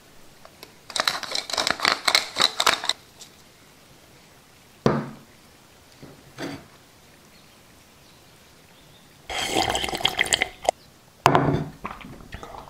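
Wet, crackling squelches of ASMR-style eating sounds, of soft wet food being handled and eaten. They come in two bursts of a couple of seconds each, about a second in and about nine seconds in, with a single thud near five seconds and a shorter wet burst near the end.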